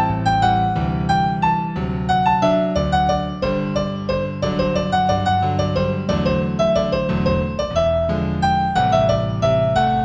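Solo piano piece in G major at a moderate tempo of about 90 beats a minute: a melody of single notes over held low chords.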